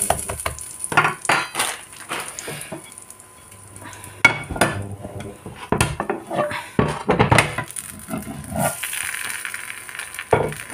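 Slotted metal spatula clinking and scraping on a nonstick frying pan, then knocks and clatter of a dish against the pan as a folded tortilla sandwich is flipped over in it. A frying sizzle comes back near the end.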